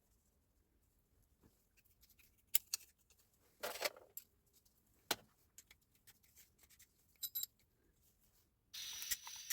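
Faint metal clicks and clinks of tool parts being handled during a Hilti TE60 rotary hammer repair, with a short scraping rustle about four seconds in. Near the end a steady hiss starts.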